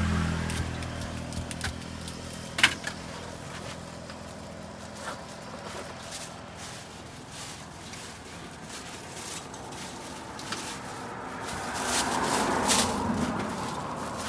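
Handling of a cardboard pizza box, with a sharp tap about three seconds in, then a thin plastic carrier bag crinkling near the end. A motor vehicle passes and fades just at the start.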